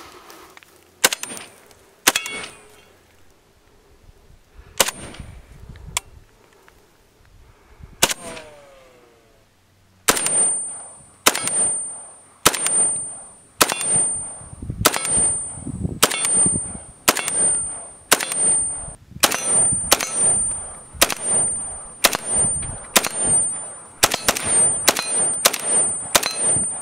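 M+M M10-762 AK-pattern rifle (FA Cugir, 7.62x39) firing single semi-automatic shots. There are five shots spaced one to three seconds apart, then from about ten seconds in a faster string of about twenty, roughly one a second and quicker near the end.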